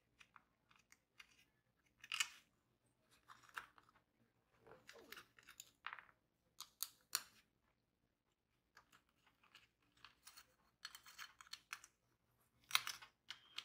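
Faint, sporadic clicks, taps and crinkles of small computer hardware being handled by hand: a metal RAM heatsink and its small plastic parts picked up, fiddled with and set down on a desk mat. There is a louder cluster of clicks near the end.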